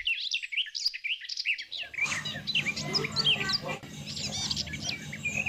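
A chorus of small birds chirping and twittering in quick, overlapping calls. About two seconds in, a low steady background hum joins them.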